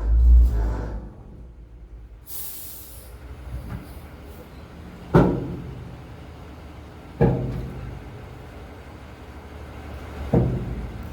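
Boxer 320 mini skid steer running steadily, with a brief hiss a couple of seconds in and three sharp clunks spaced a few seconds apart.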